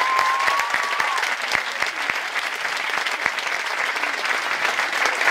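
Audience clapping steadily, with one long high call held over it for about the first second.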